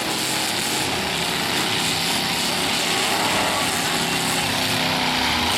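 Engines of several demolition derby trucks running hard together, a dense steady engine din with no single clear crash.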